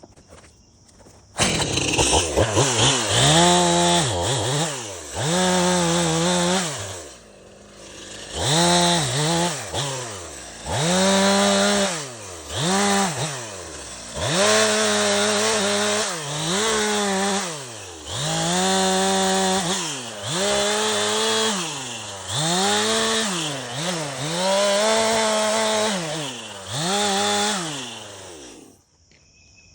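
Chainsaw cutting into a block of wood, its engine revving up and falling back again and again as the throttle is opened and released. It starts about a second and a half in and cuts off shortly before the end.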